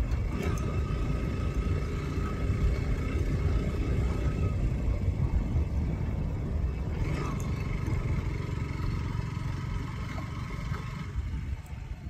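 Motorcycle riding along a road, recorded from a helmet-mounted camera. Heavy, fluctuating wind rumble on the microphone all but buries the engine.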